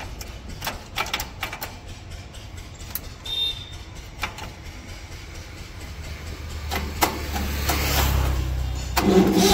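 Tractor engine being cranked to start: a low rumble that grows louder over the last few seconds, with scattered sharp metallic clicks.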